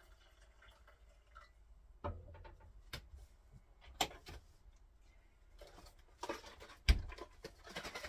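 Household handling sounds in a small caravan kitchen: scattered clicks and knocks, a cabinet door opened with rustling, and one sharp thump a little before the end, the loudest sound. Then more rustling.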